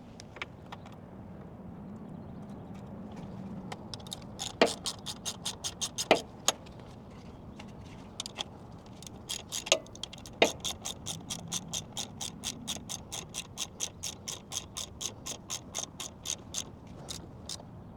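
Hand ratchet and socket turning a nut, its pawl clicking in quick even runs of about four clicks a second, with a few sharper metal clanks from the tool between runs.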